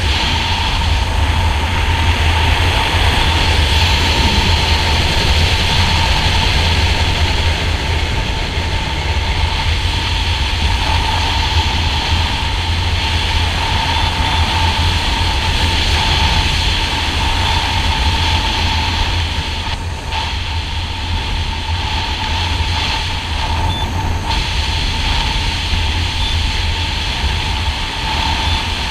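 Steady wind rushing over a helmet camera's microphone during parachute canopy flight, a constant low rumble with a hiss and a faint steady whistling tone over it.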